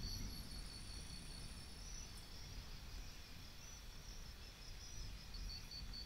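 Crickets chirping faintly in a rapid pulse, about five chirps a second, fading in the middle and coming back near the end, over a low rumble.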